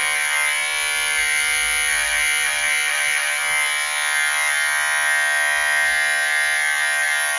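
Electric dog grooming clipper with a fine blade, running with a steady buzz while it trims the hair at the corners of a small dog's eyes.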